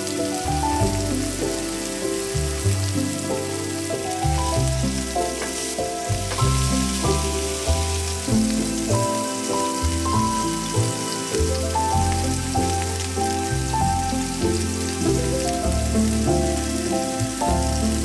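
Background music with a bass line and a melody, over the steady sizzle of beef burger patties frying in a pan.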